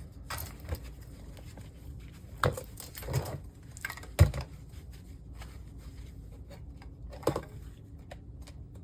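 Scattered clicks and knocks from an LCD monitor being taken apart: wire cutters clipping internal wires and plastic and metal parts being handled. About seven irregular sounds, the loudest about four seconds in.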